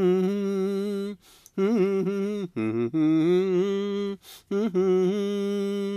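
Background song: a single voice singing long held notes in phrases, with short breaks about a second in, at two and a half seconds and just after four seconds.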